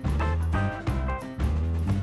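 Jazzy background music with a steady rhythm and a prominent bass line.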